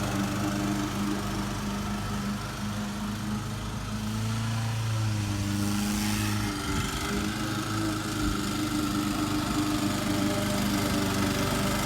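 Toro commercial walk-behind mower's 179cc Kawasaki engine running steadily while mowing grass, its pitch shifting and wavering briefly about four to seven seconds in.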